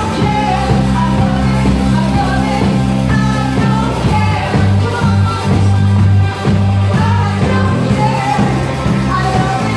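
Live rock band playing a song: a singer over bass guitar, guitar and drums, with a loud, heavy bass line.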